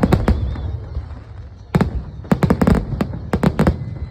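Fireworks going off in a rapid series of sharp bangs: a cluster at the start, a single bang a little under two seconds in, then a quick run of about ten bangs in the second half.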